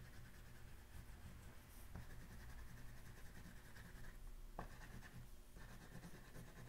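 Faint scratching of an oil pastel shading back and forth on paper.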